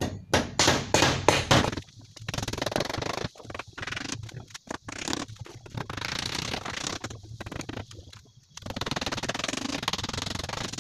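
Rapid sharp knocking, about seven blows in under two seconds, then long stretches of rough scraping with short breaks.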